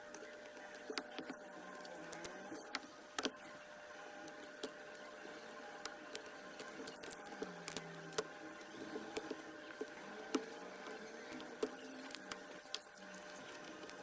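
Small clicks and taps of hand tools working on an iPhone, scattered irregularly, over a faint steady machine hum.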